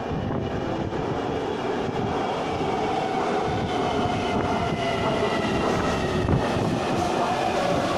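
Taipei MRT Bannan line metro train running into an underground station, a steady rumble that grows a little louder. Over it sit several whining tones that fall slightly in pitch as the train slows for the platform.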